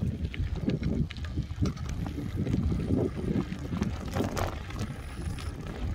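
Strong, gusting wind buffeting the microphone of a bicycle-mounted camera as the bike rolls along, a constant low rumble with scattered clicks and rattles.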